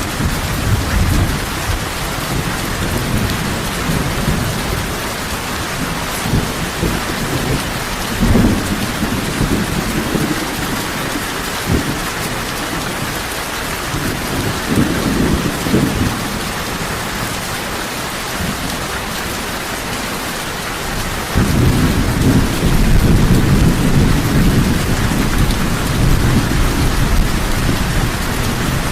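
Heavy rain falling steadily, with low rumbles of thunder; a louder, longer thunder roll sets in about two-thirds of the way through.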